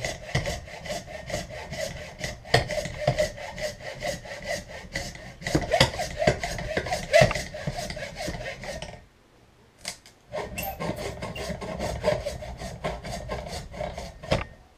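Handsaw cutting through hard antler in steady back-and-forth strokes. The sawing stops briefly about nine seconds in, then starts again.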